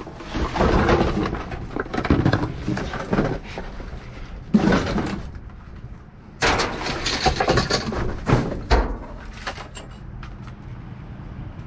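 Junk being shifted and knocked about in a dumpster: several bouts of clattering, scraping and knocking, the busiest in the first few seconds and again from about six and a half to nine seconds in.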